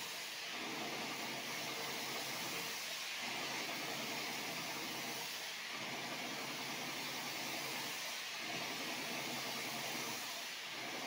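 Airless paint sprayer running: a steady spray hiss with short dips about every two and a half to three seconds.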